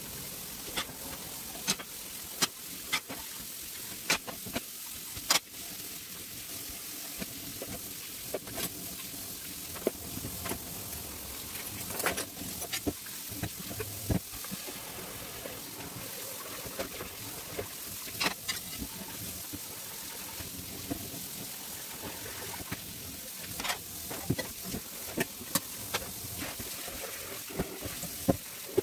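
Kitchen tap running steadily into a stainless-steel sink during hand dishwashing, with frequent sharp clinks and knocks of a glass bowl and other dishes against the sink and each other.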